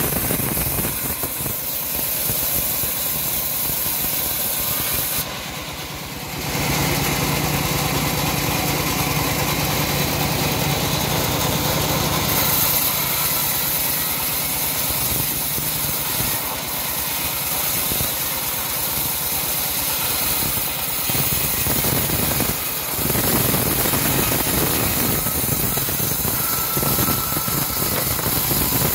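Homemade sawmill bandsaw running, its blade cutting lengthwise through a log: a steady machine drone with sawing noise. It goes briefly quieter about five seconds in.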